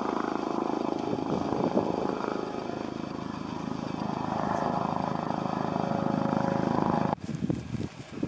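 Steady wind noise on the camera's built-in microphone, with slow swells, cutting off suddenly about seven seconds in. Then a few soft crunching footsteps in snow.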